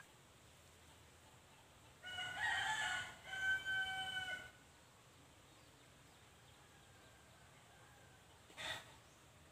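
A rooster crowing once, a single drawn-out crow of about two and a half seconds that starts about two seconds in. A short, fainter sound follows near the end.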